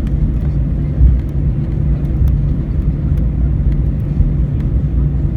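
Steady low cabin rumble inside an Airbus A319 on the ground after landing, with faint light clicks now and then.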